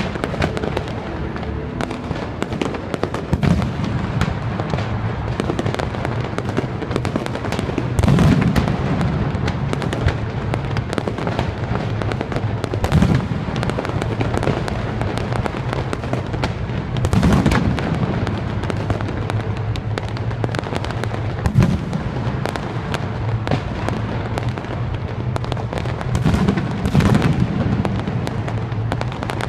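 Fireworks display: constant crackling and popping, with louder bursts every few seconds, over music.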